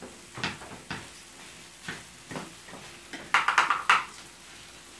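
Cooking utensils, a spatula and chopsticks, scraping and tapping against frying pans while fried rice is stirred: scattered clicks, then a quick run of clattering about three and a half seconds in.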